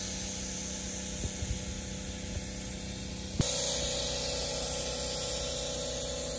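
Eastwood Concours LT100 HVLP gravity-feed spray gun hissing steadily as it sprays paint. The hiss shifts abruptly about three and a half seconds in.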